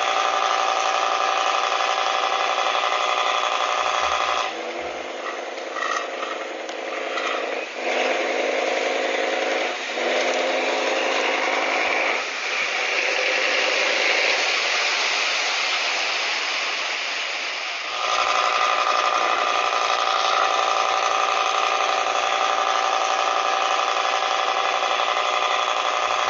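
Toy pop-pop (otok-otok) steam boat puttering with a fast, even rattle. For several seconds in the middle the sound changes and turns noisier, then the steady rattle returns.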